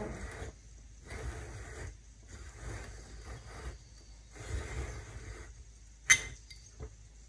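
Four scraping or rubbing strokes, each under a second to about a second long, then a sharp click about six seconds in and a fainter click soon after.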